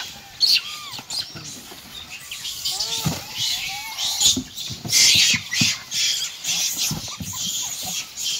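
Macaque monkeys squealing with many short calls that rise and fall in pitch, over a jumble of rustling paper and dry straw that is loudest around the middle.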